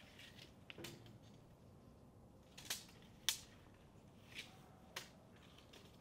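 Very quiet, with about five faint, irregular clicks; the sharpest comes a little past three seconds in.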